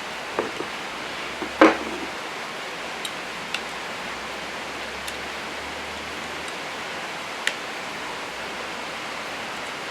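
Steady faint hiss with a few scattered light clicks and knocks of small tools and parts being handled while a bracket is taken off an RC truck chassis, the sharpest about one and a half seconds in.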